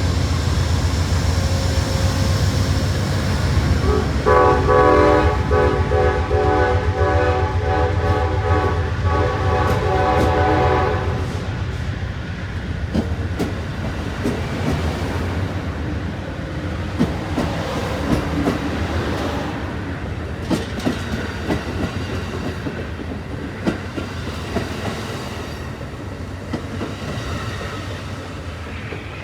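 Amtrak Southwest Chief passenger train's diesel locomotive horn playing a tune as a series of short, rhythmic blasts in a horn show, over the low rumble of the engine. Then the train's cars roll past with clickety-clack wheel clicks on the rail joints, fading as the train pulls away.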